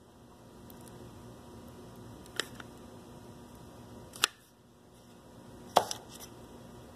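Three sharp clicks about two seconds apart over a low steady hum: the trigger of a manual dispensing gun for a two-part epoxy cartridge being squeezed while no epoxy comes down the static mixing nozzle, which he thinks is clogged.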